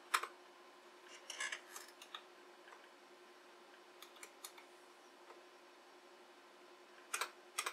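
Keys of an IBM Model M buckling-spring keyboard pressed: sharp clicks at the start, a quick flurry about a second and a half in, a few more near the middle and two near the end, over a faint steady hum.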